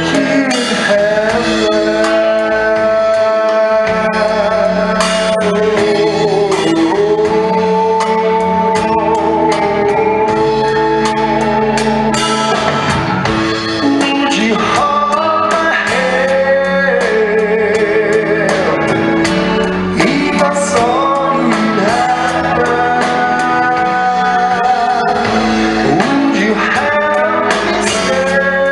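A song: a singing voice holding and gliding between long notes over instrumental backing with a steady beat.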